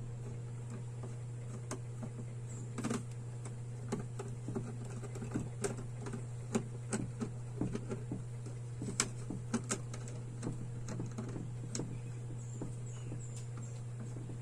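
Irregular light clicks and taps of a plastic wall switch and its wires being handled and fitted into a switch box, heaviest in the middle stretch, over a steady low hum.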